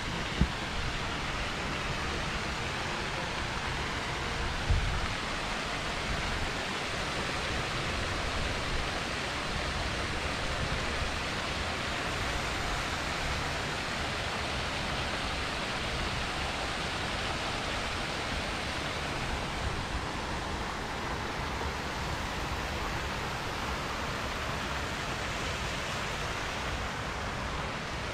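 Steady rushing noise with no pitch, with two brief low bumps, about half a second and about five seconds in.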